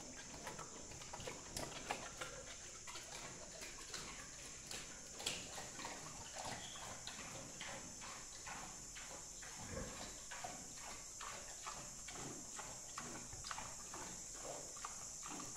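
Pig eating watermelon rinds from a trough: rapid, irregular wet chewing and crunching, several bites a second.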